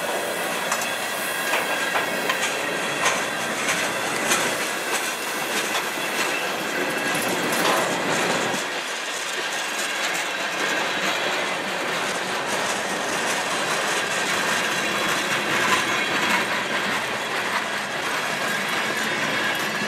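Freight cars of a manifest train rolling past close by: a steady rumble of steel wheels on rail with repeated clicks as the wheels cross rail joints, and thin high squealing tones from the wheels.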